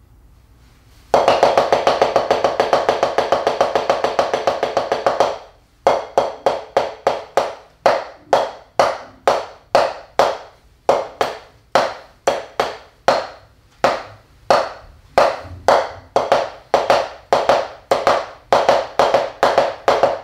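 Taiko solo played with bachi sticks on a drum practice pad. After a brief pause comes a fast, even run of strokes lasting about four seconds, then a short break, then rhythmic groups of separate strokes to the end.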